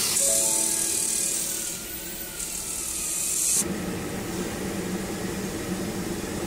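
A steady high hiss that stops suddenly about three and a half seconds in, giving way to the steady hum of a Huayuan LGK-120IGBT inverter air plasma cutter running.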